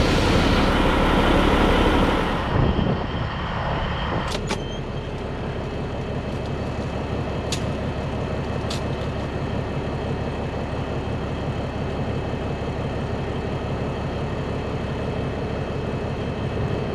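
Diesel engine of a 1984 Peterbilt 362 cabover idling steadily, heard from inside its cab, as it warms up on high idle. A few sharp clicks sound between about four and nine seconds in.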